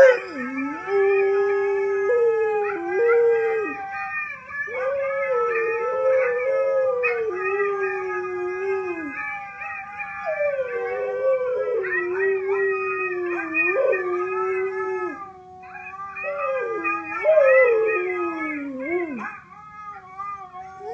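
Dogs howling together in long, wavering howls that overlap: a husky howling duet playing from a laptop, with a dog in the room howling along.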